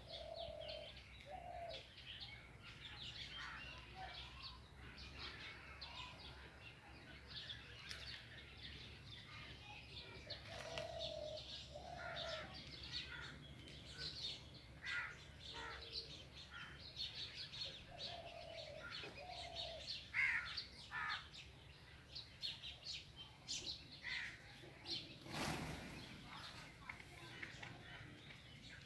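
Small birds chirping and singing outdoors, with a low two-note call repeated three times, and a brief rush of noise about 25 seconds in.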